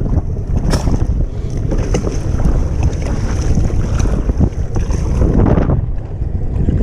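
Strong wind buffeting the microphone as a kayak is paddled through choppy sea, with the paddle blades and waves splashing against the hull.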